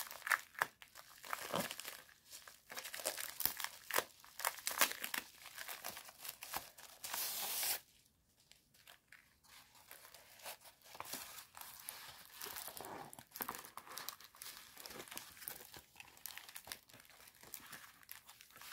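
Plastic mailer bag being torn open and its contents unwrapped: sharp crinkling and crackling of plastic, a sustained tear that stops abruptly about eight seconds in, then a short lull and softer rustling of plastic wrap.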